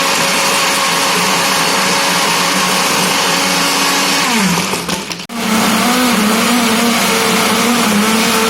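Electric blender running on mint, ice cubes and soda. Its motor winds down about four and a half seconds in, stops for a moment, then starts again and runs steadily.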